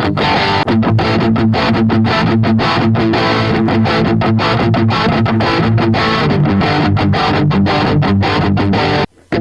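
Distorted electric guitar, a Tagima T-635 Strat-style guitar through a Zoom G1 Four effects pedal, playing a fast, steady run of picked notes. It cuts out for a moment near the end before carrying on.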